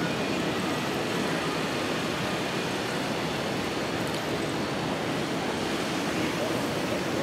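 Steady outdoor city-street ambience: an even wash of noise with no single sound standing out.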